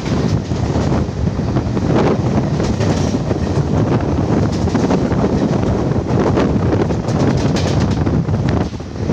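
Garib Rath Express train running at high speed: a loud, steady rumble with scattered knocks, under heavy wind buffeting on the microphone. The noise dips briefly near the end.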